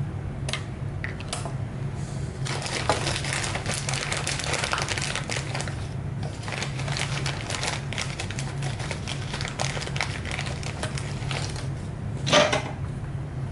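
Dense small crackles and clicks, from about two seconds in until near the end, over a steady low hum, with one louder scrape or knock near the end. Heard while a tact switch is being desoldered from a circuit board.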